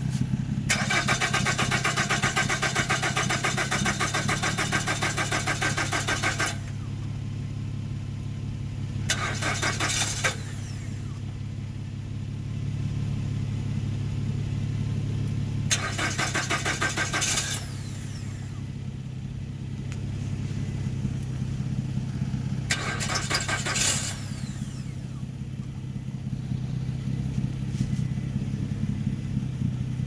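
The 2013 Nissan Rogue's 2.5-litre four-cylinder engine is cranked by the starter four times, a long crank of about six seconds and then three shorter ones, and it never catches. This is a crank-no-start condition, which the uploader's shop later traced to an ECM that was not communicating.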